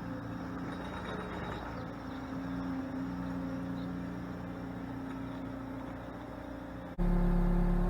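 Bobcat T66 skid steer's diesel engine running steadily under a light load. About seven seconds in it suddenly becomes much louder and deeper.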